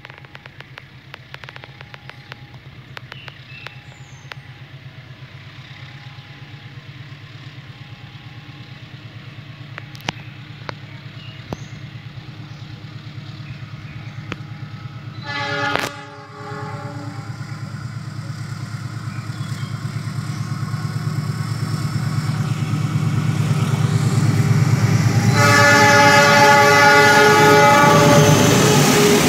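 Diesel locomotive approaching and growing steadily louder, sounding its horn in a short blast about halfway through and again in a long blast near the end as it draws alongside. An alternating two-tone electronic warning signal beeps through the first half.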